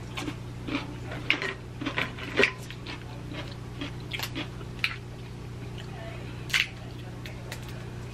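Boiled shellfish shells crackling and clicking as they are broken and peeled by hand, mixed with chewing. The sounds come in short, irregular bursts, bunched in the first few seconds with a louder crack about six and a half seconds in, over a steady low hum.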